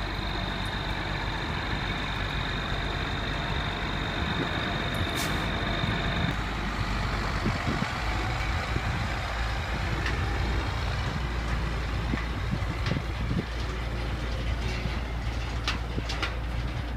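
Truck engine running with a steady low rumble, with a thin high whine that stops about six seconds in and scattered sharp knocks and rattles later on.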